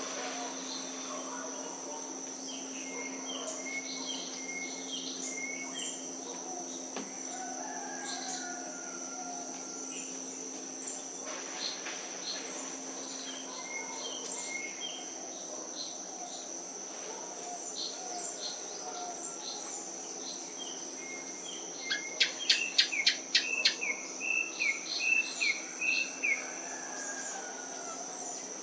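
Wild birds chirping and calling over a steady high-pitched insect drone. About 22 seconds in, a bird gives a loud, rapid run of sharp notes lasting about two seconds, then a quicker string of chirps.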